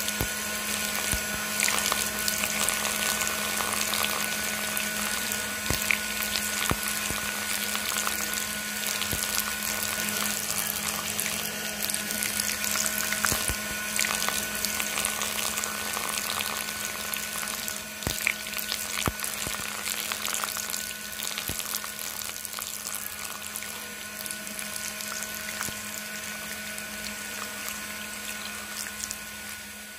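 Small electric toy motor whirring steadily as it drives a miniature hand pump through a rubber-band belt, with water gushing from the pump's spout and splashing onto wet concrete.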